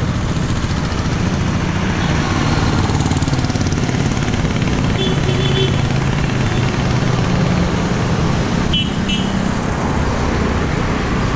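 Steady rush of wind on the microphone of a camera riding on a moving bicycle, mixed with motor traffic running past on the road. A brief high beep sounds about nine seconds in.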